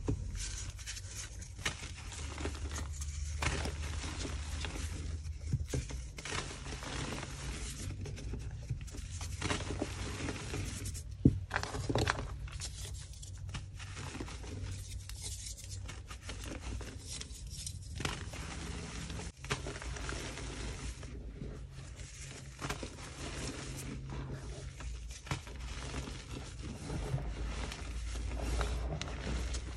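Blocks of gym chalk being crushed and crumbled by hand into loose chalk powder: irregular dry crunching and crumbling, with one sharper crack about eleven seconds in.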